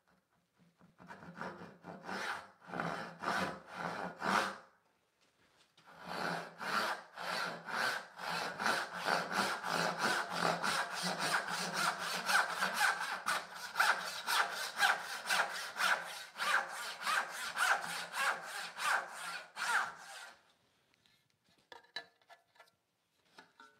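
Rob Cosman medium tenon saw cutting down the grain of a poplar board. A few short starting strokes, a brief pause, then steady rhythmic sawing at about three strokes a second until it stops about 20 seconds in, with the saw going through relatively easily.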